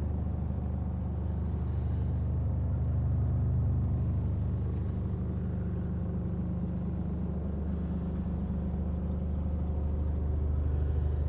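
Mercedes Actros 1840's 400 bhp Euro 6 diesel engine idling steadily, heard from inside the cab.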